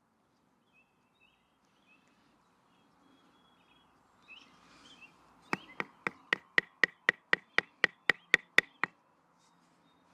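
Wooden baton rapidly striking the spine of a Swiss Army knife blade to drive it through a piece of wood: a quick run of about fourteen sharp knocks, about four a second, each with a short metallic ring, mostly getting louder.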